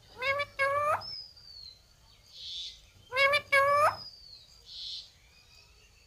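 Indian ringneck parakeet calling: two short rising squawks, a thin falling whistle and a brief hiss. The same sequence repeats about three seconds later.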